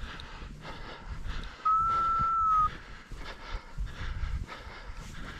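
Footsteps crunching through deep snow. About a third of the way in comes a single steady high tone, a beep-like whistle about a second long that dips slightly at its end.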